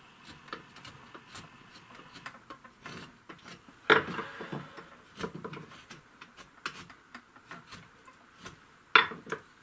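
Carving chisel cutting into wood with short turning strokes: a quick irregular run of crisp clicks and scrapes, with two louder knocks, one about four seconds in and one near the end.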